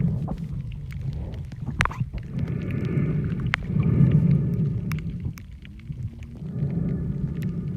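Muffled underwater sound picked up through a camera's waterproof case: a low rumbling wash with scattered sharp clicks.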